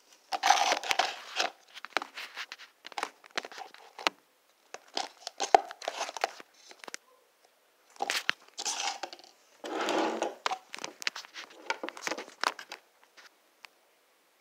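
Crinkly rustling and crackling in irregular bursts, several times over, fading out shortly before the end.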